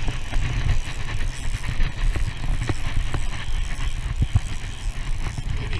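Spinning fishing reel being wound in while a hooked fish is fought, with scattered clicks over a steady low rumble on the microphone.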